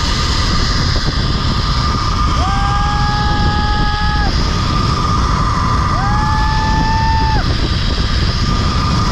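Wind rushing over the microphone during a fast zipline ride, with a steady high whine throughout. A man whoops twice over it in long held cries, each sliding up and then holding.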